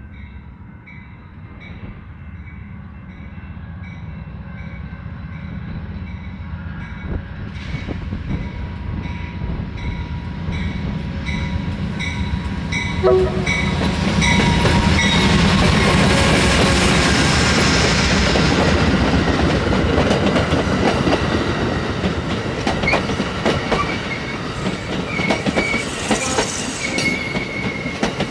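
Amtrak California Zephyr, led by two P42DC diesel locomotives, arriving at the station. The diesel engines and rolling wheels grow steadily louder and peak about halfway through as the locomotives pass. A bell rings about once a second through the first half, and as the train slows the wheels clack over rail joints and squeal.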